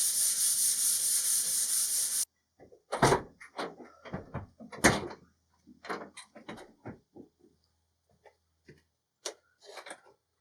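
Sanding on wood, a steady raspy hiss with a fast even pulse, that stops abruptly about two seconds in; then a run of irregular knocks and clunks.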